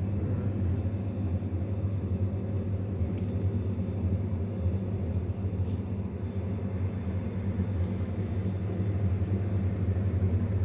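Steady low machine hum, even and unchanging.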